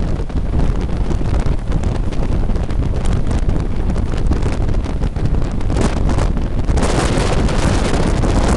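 Heavy wind buffeting on the microphone, held outside the cab of a moving 060-EA electric locomotive, over the running noise of its wheels on the rails. The rushing grows louder and hissier about seven seconds in.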